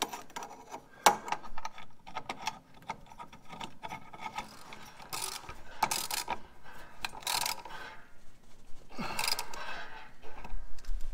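Socket ratchet clicking in quick runs as it tightens the mounting bolt of a new idler pulley, with scattered small metal knocks and clicks before the ratcheting starts.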